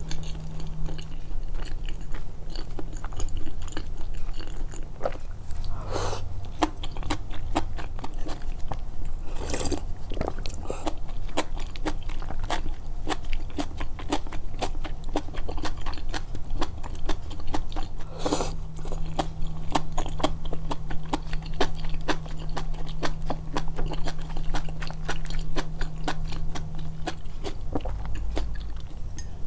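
Close-miked, amplified chewing: a person eating with a dense, continuous run of small wet mouth clicks and smacks, with a few louder moments spread through.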